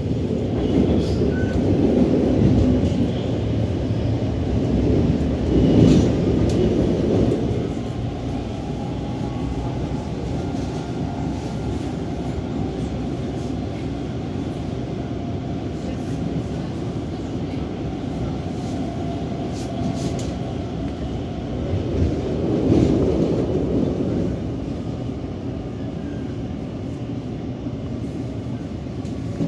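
Helsinki metro train heard from inside the carriage while running along the line: a continuous low rumble of wheels on rails and traction motors. It swells louder a few times, twice in the first seven seconds and once more about three quarters of the way through.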